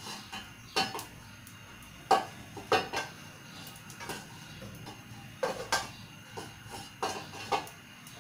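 A metal wok on a gas stove clanking and scraping as oil is wiped around it with a paper towel: a string of sharp metallic knocks, mostly in pairs.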